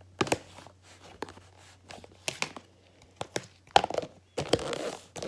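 Slime being squished and stretched by hand, giving irregular sticky crackles and sharp pops, busier about four seconds in.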